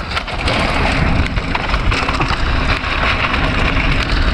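Mountain bike riding fast down a loose dirt trail: knobby tyres crunching and crackling over gravel with a dense, steady clatter and a low rumble.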